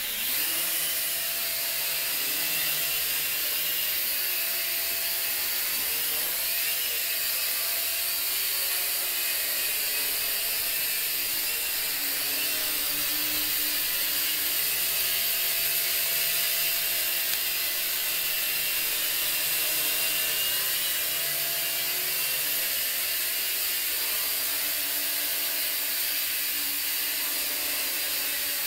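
J Perkins Twister toy quadcopter's small electric motors and propellers whining steadily in flight, the pitch wavering a little as the throttle changes.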